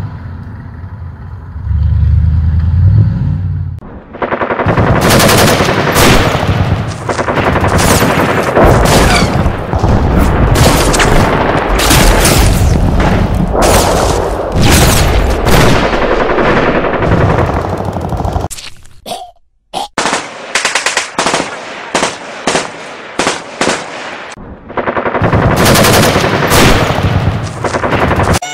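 Battle sound effects of automatic gunfire: a low rumble at first, then a long stretch of rapid, continuous machine-gun and rifle fire, breaking into separate short bursts in the latter part before dense firing resumes near the end.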